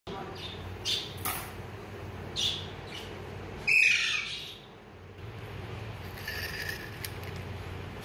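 Alexandrine parakeets calling: a few short squawks, then one loud, harsh squawk about four seconds in, and softer calls near the end.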